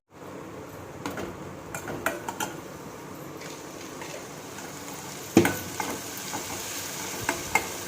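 Sliced shallots and tomato sizzling in coconut oil in a pan while being stirred, with the spatula scraping and knocking against the pan now and then; the loudest knock comes about five and a half seconds in.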